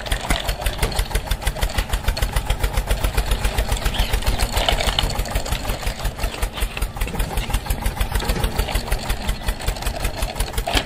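Tractor engine sound running at a steady idle-like putt-putt, a fast even beat of low thumps, as the toy tractor pulls its loaded trolley along.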